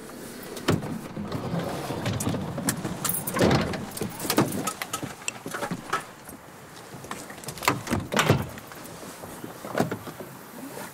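Passenger van's side door and gear being handled: a string of sharp knocks and clunks over rustling as people climb out of the van with their instruments.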